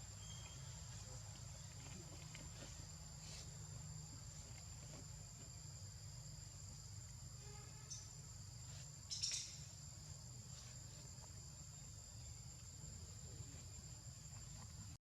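Insects trilling steadily at two high pitches over a low background rumble, with a short sharp sound about nine seconds in.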